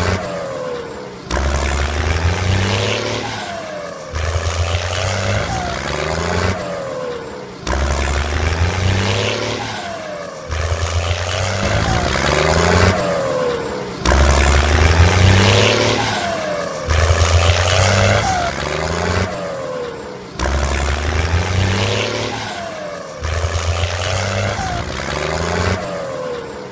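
Tractor engine revving in repeated surges about every three seconds, each rising and then dropping back, with a loud deep hum under it.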